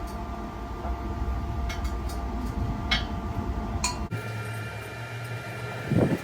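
Steady low machine hum with a few light metallic clinks. The hum cuts off abruptly about four seconds in, leaving a fainter, higher steady hum.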